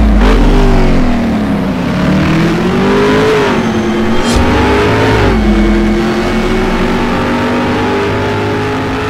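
An engine revving, its pitch dipping and climbing several times and settling lower about five seconds in, with a short sharp click about four seconds in.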